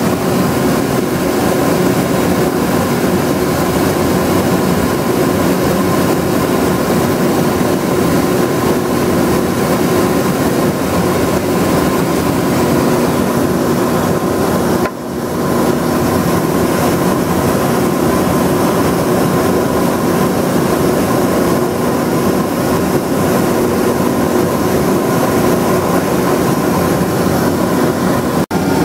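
Drill press and a dust-collection vacuum running steadily while a 17/64-inch bit drills the axle holes in a wooden toy race-car body. The noise drops briefly about halfway through.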